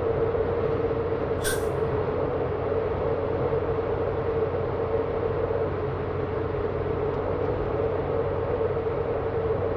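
Steady dark drone with one held tone over a low hum, unchanging throughout: an ambient horror-film sound bed. A brief high hiss cuts in about a second and a half in.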